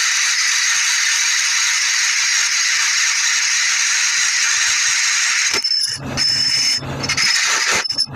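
A steady, loud hissing rush of workshop noise. About five and a half seconds in it breaks up into uneven, rattling stretches with a low hum, then cuts off at the end.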